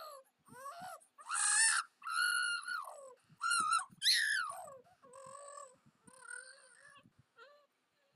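Infant squealing and cooing in a string of short high-pitched calls that slide up and down in pitch, the loudest squeals in the first half and softer coos after about five seconds in.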